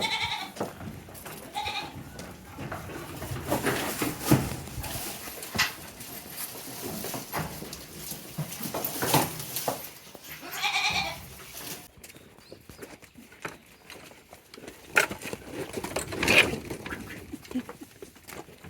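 Goats bleating a few times: short calls at the start and about two seconds in, and another about eleven seconds in, among scattered knocks and rustling.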